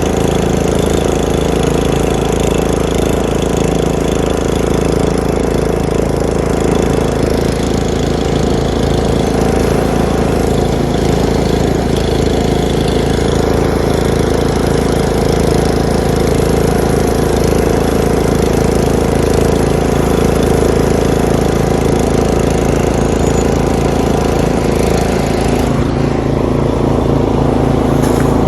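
A vehicle engine running steadily at an even idle.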